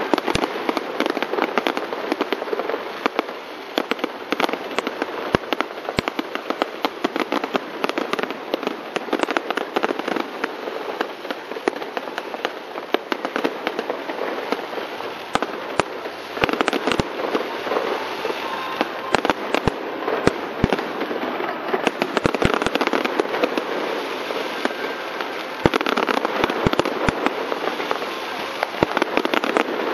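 Aerial fireworks display: a dense, continuous crackling with many sharp pops and bangs, thickest in the second half.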